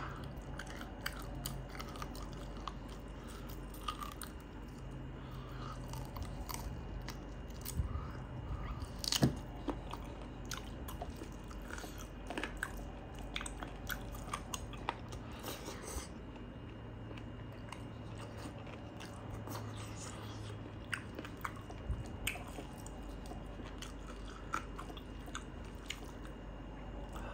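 Close-up chewing and biting of a mouthful of rice and buffalo curry, with many small wet clicks and crunches; one louder crunch about nine seconds in.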